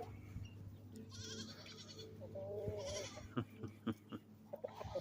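Chickens calling: a high squawk about a second in, then a drawn-out, wavering call a little over two seconds in, with scattered clicks and knocks after it.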